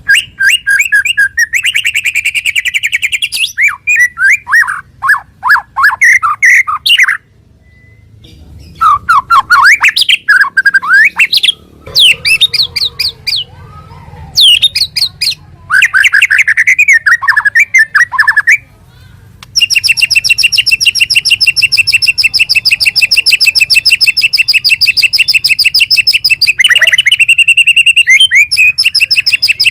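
White-rumped shama (murai batu) singing loudly. It gives a string of varied, quick whistled and chattering phrases with short pauses, then a long, fast, even trill lasting about seven seconds, then a few more phrases near the end.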